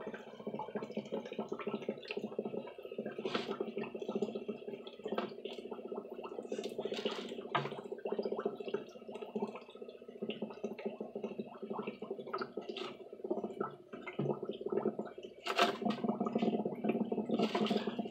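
Aquarium water sloshing and dripping as it is stirred, with irregular clicks and knocks of handling over a steady hum.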